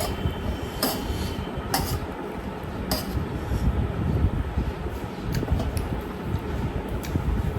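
Close-up eating sounds of mutton curry and potatoes: chewing and mouth noises, with a few short clinks of dishes or cutlery.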